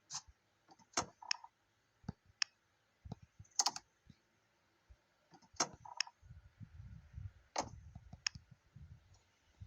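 Irregular sharp clicks and taps, about nine spread over several seconds, with a low rumble starting about six seconds in.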